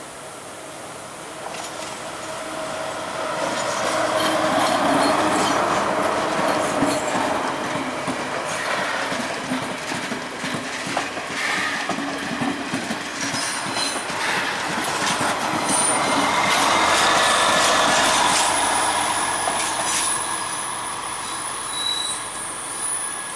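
Sri Lanka Railways diesel multiple unit passing slowly, its wheels clicking over the rail joints, with a thin, high, steady wheel squeal in the later part. It grows louder as it comes close, eases off, then swells again.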